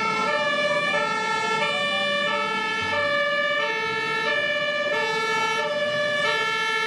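Fire engine's two-tone emergency siren alternating steadily between a high and a low note, about every half second.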